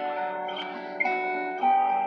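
Instrumental music: a slow melody of ringing, plucked-string notes, a new note sounding every half second or so.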